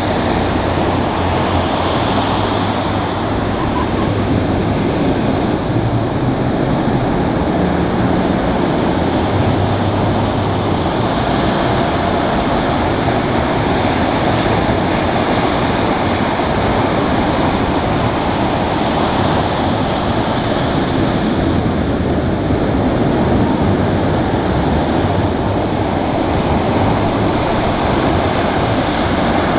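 Pacific surf breaking and washing up over a sand beach: a steady, loud rush of waves.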